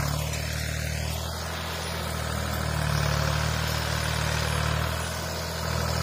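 Farm tractor engine running steadily under load as it climbs a steep, muddy forest track, swelling slightly about halfway through.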